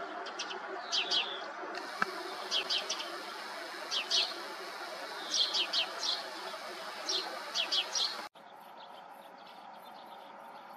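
A small songbird calling: short, high chirps in quick clusters of two or three, repeated about every second over a steady outdoor background noise. About eight seconds in the sound cuts to a quieter background with faint high ticking.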